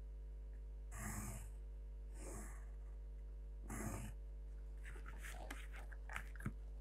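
Faint pencil strokes on drafting paper as lines are darkened against a set square: three short scratches, then a run of small clicks and taps as the set square and scale are moved, the sharpest tap near the end.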